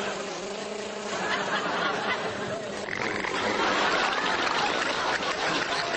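Studio audience laughing, swelling about a second in and louder again about three seconds in.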